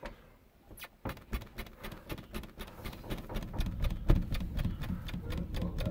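Wooden subfloor and joists overhead knocking and clicking rapidly, with low thumps, as a person bounces on the soft floor above. The run starts about a second in, at roughly four knocks a second.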